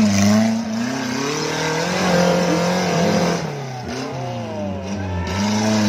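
Off-road buggy engine revving hard and unevenly, its pitch repeatedly rising and falling as it struggles for grip on a steep, muddy climb it cannot get up.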